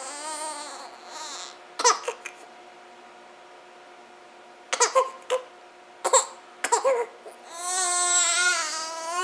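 Newborn baby crying in high, wavering wails: one for about a second and a half at the start, short sharp bursts in the middle, and a longer wail near the end.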